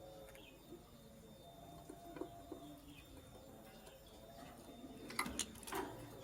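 Lovebirds chirping faintly against low, drawn-out dove-like cooing in the background. About five seconds in, a short burst of sharp rustling clicks is the loudest sound.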